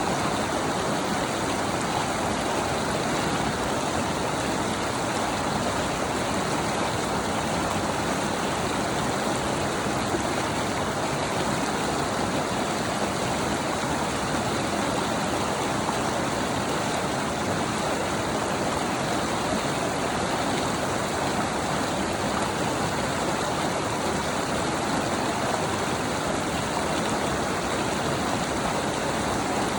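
A stream rushing steadily, an even unbroken wash of water noise.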